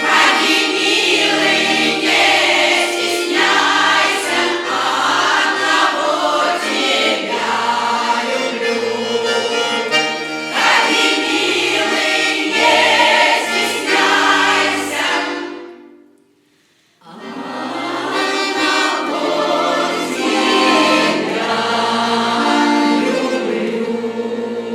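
Russian folk choir singing ditties (pripevki) with instrumental accompaniment. The music breaks off about fifteen seconds in, there is a second of near silence, and then it starts again.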